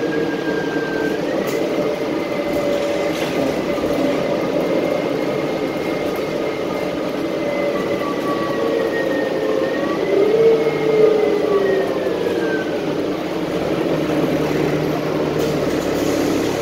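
City transit bus heard from inside the cabin while driving: steady drivetrain rumble with a whine whose pitch climbs about two-thirds of the way through, then drops away as the bus slows, leaving a lower steady hum near the end.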